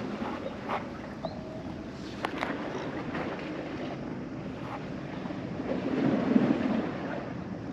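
Wind buffeting the microphone over the sea washing against a concrete tetrapod breakwater, with a few faint clicks about two seconds in and a swell of low noise around six seconds in.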